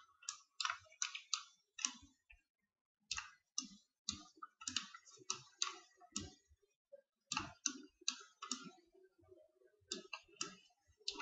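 Computer mouse clicking: an irregular series of short, sharp clicks, two or three a second, with a brief pause about midway.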